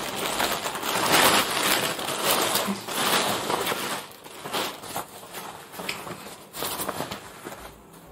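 Clear plastic packaging crinkling and rustling as a riding jacket is handled and pulled out of its bag. Loudest in the first few seconds, then fainter, broken rustles.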